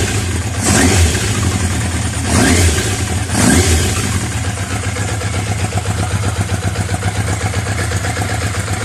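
Yamaha FZ750's inline-four engine running on a cold start without choke, revved briefly four times in the first four seconds, then settling to a steady idle.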